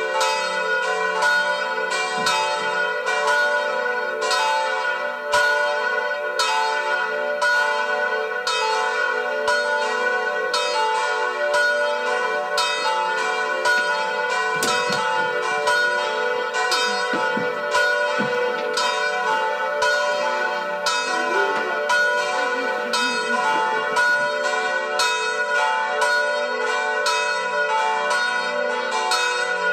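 Church bells pealing: a continuous, even run of struck strokes with the tones ringing on and overlapping.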